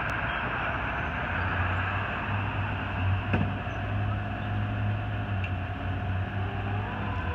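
Fire truck's diesel engine running in the station bay, a low steady hum over a constant wash of noise. A tone glides up and then holds near the end.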